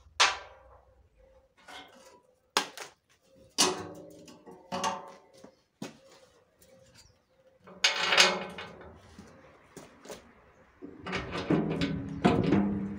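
Clanks and knocks of a rusty steel battery box being handled and set up against a truck's steel chassis rail: single metal knocks every second or so, a longer clatter about eight seconds in, and a run of ringing clanks near the end as the box is lifted into place.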